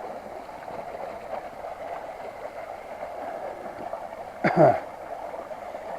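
A stream running steadily, a constant rushing of water. About four and a half seconds in there is a brief vocal sound from a man.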